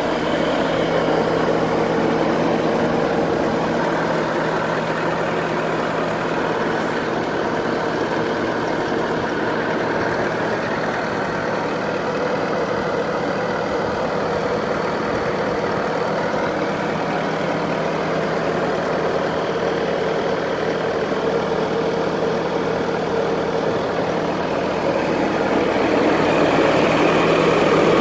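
A 2014 Bobcat S650 skid steer loader's diesel engine running at a steady idle, a little louder near the end.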